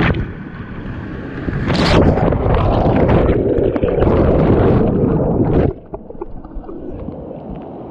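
Whitewater rushing and churning over an underwater camera on a capsized kayak, heard as a loud, muffled rush. About six seconds in it drops suddenly to quieter water rushing as the camera comes back up above the surface.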